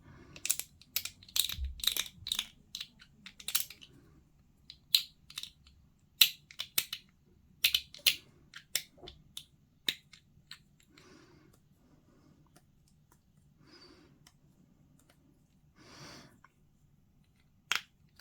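Plastic miniature parts being trimmed with hobby tools: a run of sharp clicks and snips as pieces are cut free of the sprue and cleaned up, coming thick and fast for the first ten seconds or so, then only now and then.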